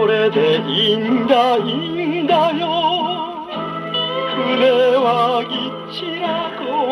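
A 1959 Japanese popular-song 78 rpm record playing on a Columbia Model G-241 portable gramophone through its acoustic soundbox: a sung melody held in long notes with wide vibrato over the band.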